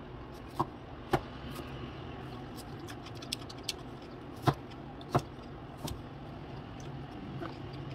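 Kitchen knife cutting a yellow bell pepper into sticks on a plastic cutting board: sharp, irregular cuts and taps of the blade against the board, a few per couple of seconds, the loudest about four and a half and five seconds in.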